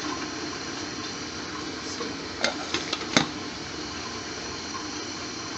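Gas hob burner on a medium flame under a pan of rice and water, giving a steady hiss. A few light clicks come a little past halfway.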